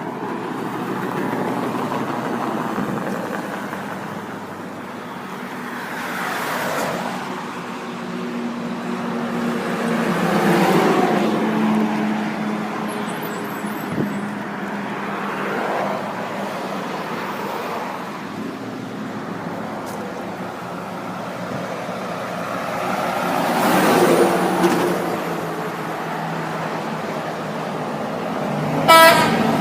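Road traffic, several vehicles passing one after another, then near the end a brief, loud truck horn blast.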